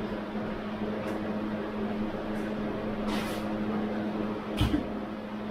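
A mop working a wet tiled floor over a steady room hum: a brief swish about three seconds in, then a short knock near the end, the loudest sound.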